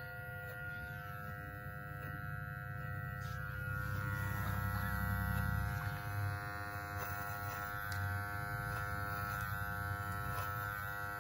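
Furrykid cordless pet clippers running with a steady electric hum as they trim the fur on a standard poodle's paw, with a low rumble swelling for a couple of seconds near the middle.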